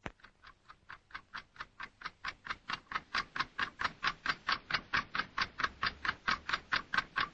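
Clock ticking fast and evenly, about four or five ticks a second, growing steadily louder.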